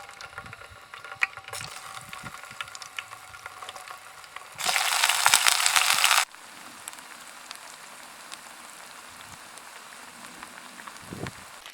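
Cooking on a portable camp stove. First there are scattered clicks and rattles of handling. About five seconds in a loud hiss lasts about a second and a half, then settles to a steady, quieter hiss like food frying.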